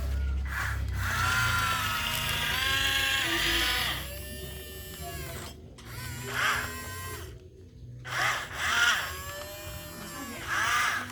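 Small electric motors of radio-controlled construction models, an excavator and a dump truck, whining and rising and falling in pitch as they work. The busiest stretch lasts about four seconds, followed by shorter bursts with pauses between.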